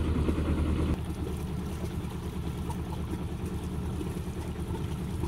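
A sailboat's engine running, its note dropping and getting quieter about a second in, then carrying on as a lower, pulsing run.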